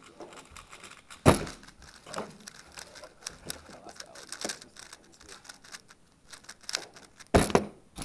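A 3x3 speedcube being turned very fast by hand: a rapid run of clicking, clacking layer turns for about six seconds. There is a thump about a second in, and near the end a loud slap of hands hitting the Stackmat timer's pads to stop it.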